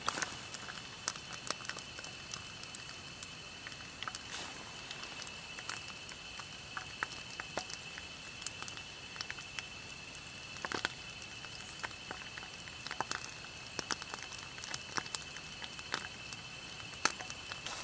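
Eel pieces frying in hot oil, the oil crackling with irregular sharp pops.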